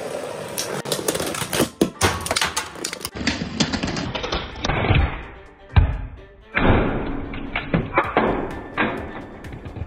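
Beyblade X spinning tops clashing in a plastic stadium: a rapid, uneven run of sharp clicks and knocks, with the loudest knock about six seconds in.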